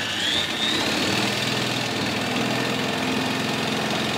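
Cordless drill spinning a single-cylinder Honda UT3 quarter midget engine over on its flywheel at about 2,000 RPM or more for an ignition timing check. The drill's whine rises during the first second, then holds steady over the engine's rapid, even pulsing.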